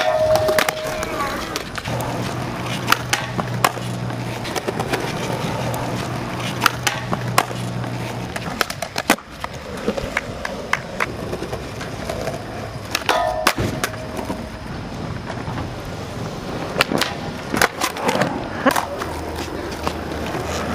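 Skateboard wheels rolling on a concrete skate park surface, with sharp clacks of boards hitting and landing scattered throughout. There is a brief scraping grind along a rail at the very start.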